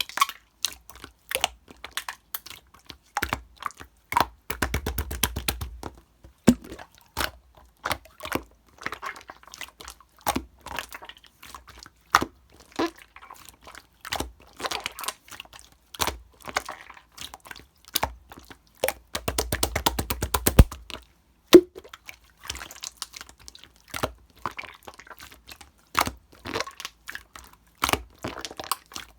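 Slime being pressed, folded and stretched by hand, giving sharp clicks and pops as trapped air bubbles burst. Twice, about five seconds in and again about twenty seconds in, it breaks into a quick run of crackling.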